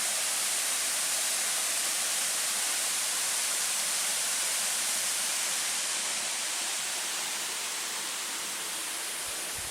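Waterfall rushing into a rocky pool: a steady, even hiss of falling water, easing a little near the end.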